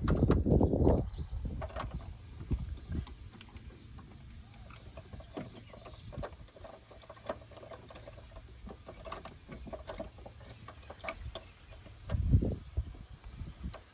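Irregular light clicks and clinks of hand tools and a nut being threaded and tightened onto a car's engine/transmission mount, with a louder low thump about twelve seconds in.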